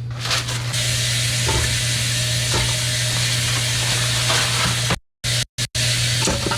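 Butter sizzling in the hot Ninja Foodi pot: a steady crackling hiss over a low hum, with a few light knocks. The sound cuts out abruptly twice, briefly, a little past the middle.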